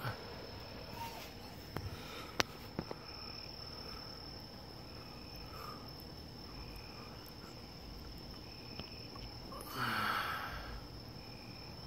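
Crickets trilling steadily in one high, unbroken tone, with fainter short chirps repeating underneath. A few small clicks come about two seconds in, and about ten seconds in a brief rustling rush close to the microphone is the loudest sound.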